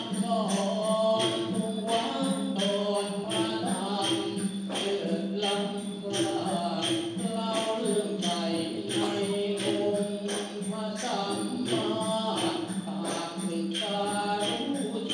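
A sung chant amplified through a microphone over a steady beat of percussion strikes, about three a second, with a steady low note beneath.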